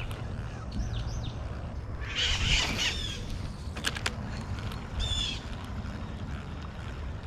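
Birds calling by a canal: a few short chirps, then two harsh squawks about two and five seconds in, over a steady low rumble. A couple of sharp clicks come about four seconds in.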